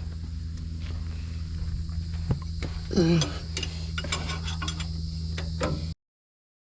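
Faint clicks and clinks of hand tools on a car's battery cable connections over a steady low hum, with a short vocal grunt about three seconds in. The sound cuts off abruptly about six seconds in.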